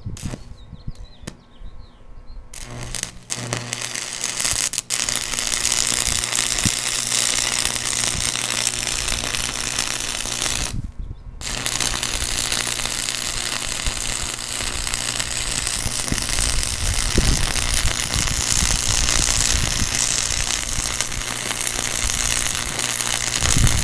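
A small 110-volt, 120-amp AC stick welder (buzz box) arc welding: a continuous crackling, sizzling arc over a steady low hum. The arc catches a few seconds in, breaks off for about a second near the middle, and is struck again.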